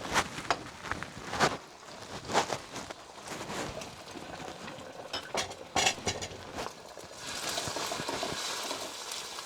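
A metal utensil clinking and knocking against a pan several times, then, about seven seconds in, a steady sizzle starts as eggs go into the hot oil left in the pan.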